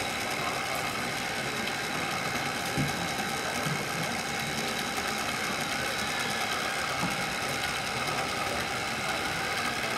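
Radio-controlled Liebherr 574 wheel loader model working a soil pile, its electric motors and hydraulics whining steadily, with a light knock about three seconds in.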